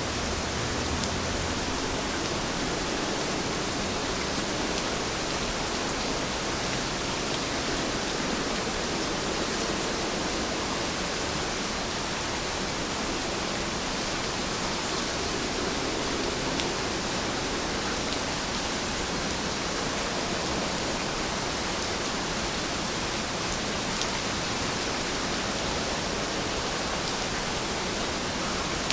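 Steady rainfall, an even hiss of falling rain with a few faint drop ticks.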